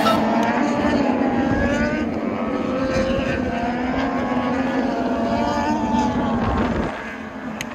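Racing motorcycle engines running on the circuit, their pitch rising and falling as they rev and shift. The sound drops away about seven seconds in.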